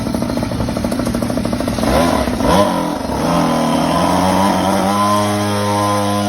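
An engine putters rapidly at idle, then revs up about two seconds in, its pitch climbing before it holds steady as it runs on at speed.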